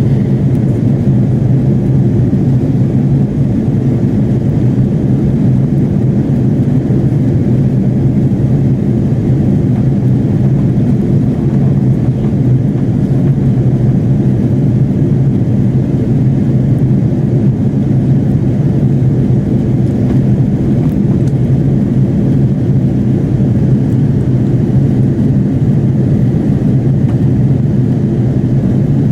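Steady cabin drone of an Airbus A330-300 airliner in flight: engine hum and airflow noise heard from inside the passenger cabin, with low hum tones and no change in pitch or level.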